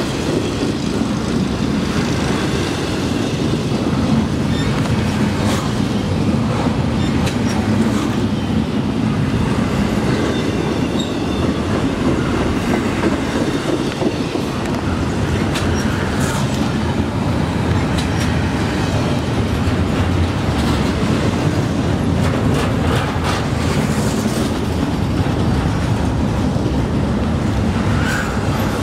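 Double-stack intermodal freight train rolling past at speed: a steady low rumble of steel wheels on rail, broken by many quick clicks as the wheels cross rail joints.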